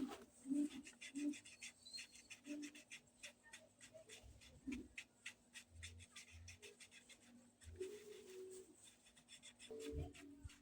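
Faint, quick scratching and rubbing strokes of hand work on a PVC pipe barrel, such as filing or sanding the plastic.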